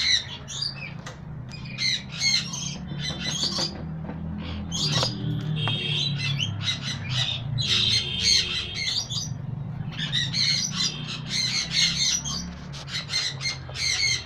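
Pied yellow sun conure squawking loudly and over and over, short calls coming several a second in bunches, with a thinner spell around the middle.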